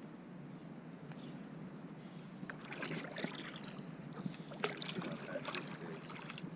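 Small boat moving on the water, with a steady low hum underneath. From about two and a half seconds in there is a run of short splashes and knocks from water and the boat.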